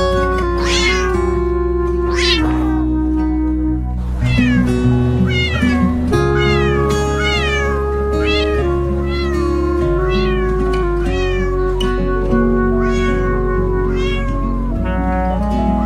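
Cat meows over background music with held notes and a bass line: two long meows in the first few seconds, then a quick string of short, falling meows.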